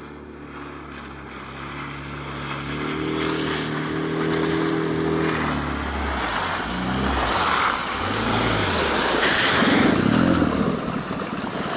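Suzuki DF20A two-cylinder four-stroke outboard driving an inflatable PVC boat at speed, growing steadily louder as it approaches. About six seconds in the throttle comes back and the engine's pitch drops and wavers, and near the end water rushes and splashes as the boat noses onto the shore.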